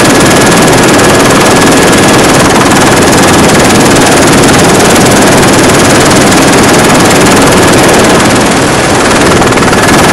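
Helicopter noise heard from on board: loud, steady rotor and engine rumble with a thin steady whine running through it.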